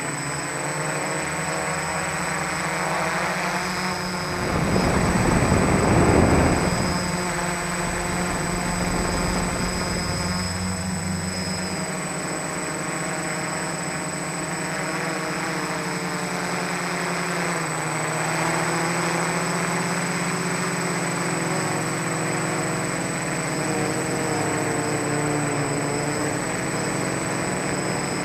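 F450 quadcopter's four brushless motors and 10-inch propellers humming steadily at hover, as picked up by the camera on board, with several pitches drifting up and down as the motors adjust. About five seconds in, a rush of wind noise swells for a couple of seconds and is the loudest part.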